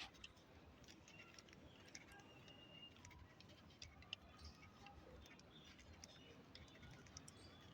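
Near silence: faint background with scattered light ticks and a few faint high chirps.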